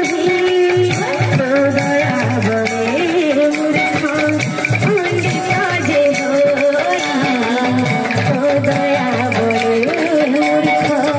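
Live Budamaal kirtan, Odia folk devotional music: a singer's voice on a microphone over instrumental accompaniment, playing loud and without a break.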